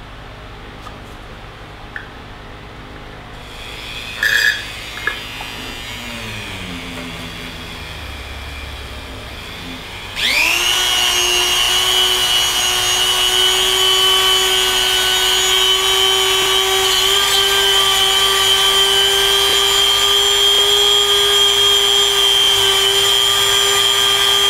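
A couple of short knocks, then about ten seconds in a Dremel rotary tool switches on, its whine rising quickly and then holding steady as a polish-loaded polishing wheel buffs a coin.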